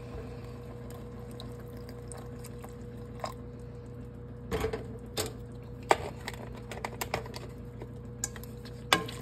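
Whole milk being added to a pot of cooked macaroni with a wooden spoon: a soft liquid sound, then scattered knocks and clicks of the spoon against the pot, the sharpest about six and nine seconds in, over a steady hum.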